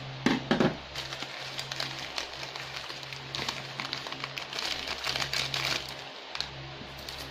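SkyFlakes crackers being crushed by hand and crumbled into a bowl, with dry crackling and the crinkle of the plastic cracker packet. The loudest burst comes just after the start, and a longer spell of crackling follows in the second half.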